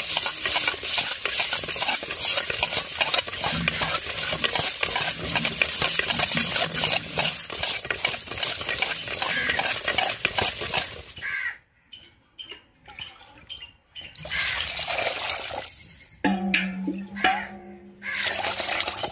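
Small fish being scrubbed by hand with coarse rock salt in an aluminium pot: a dense, gritty scraping and clicking of salt crystals and fish against the metal, broken by a short pause partway through. Near the end the fish are being washed in water.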